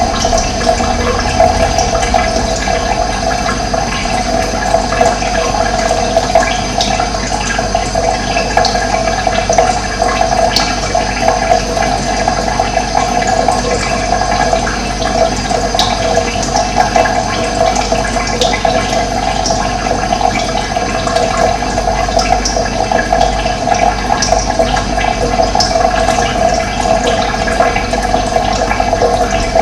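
Running water rushing steadily, with faint, brief bird chirps now and then above it.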